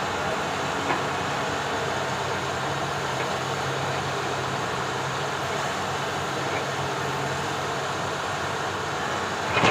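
Excavator's diesel engine running steadily, with a small knock about a second in and a brief louder clatter near the end.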